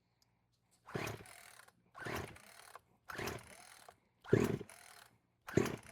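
Poulan Predator 42cc two-stroke chainsaw being pull-started: five rapid rips of the recoil starter cord, about one a second, turning the engine over without it firing. The cylinder is scored and the engine lacks compression.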